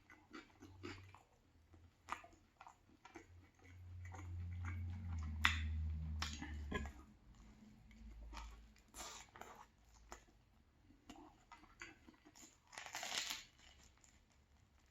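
Close-up chewing and crunching of a banh mi sandwich in a crusty baguette, with irregular bites and crunches. A low hum from about four to seven seconds in, and a louder rustling crunch near the end.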